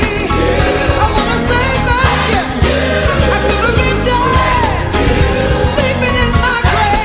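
Gospel quartet-style song: a singer's voice over a band with a steady beat.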